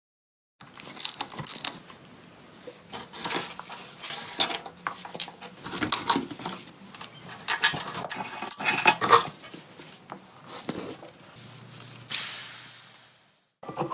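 Metal parts and tools clinking and knocking in irregular handling during motorcycle restoration work. About twelve seconds in comes a hiss of spray, which fades out over about a second and a half.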